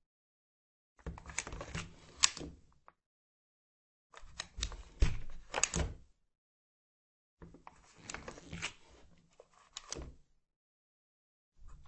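Wooden office door opening and closing three times, each take a short cluster of latch clicks and knocks ending in a sharper closing knock, with silence between takes.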